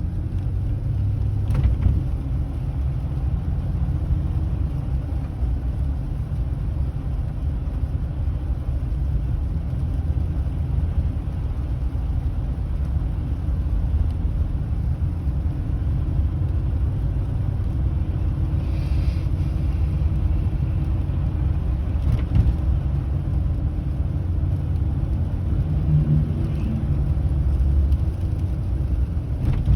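Car driving along a road, a steady low rumble of engine and tyre noise.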